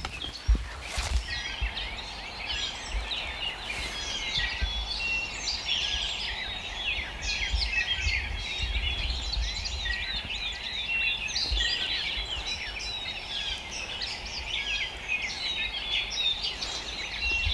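Morning chorus of many songbirds singing and chirping at once, overlapping trills and whistled notes throughout, over irregular low thumps and rumbles.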